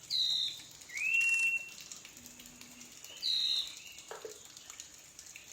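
A bird calling with clear whistled notes. There is a short falling note, then a whistle that rises and holds steady about a second in, and another short falling note about two seconds later.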